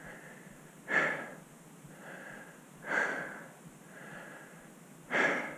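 A man breathing hard, out of breath from climbing uphill through deep snow: three loud exhales about two seconds apart, with quieter inhales between.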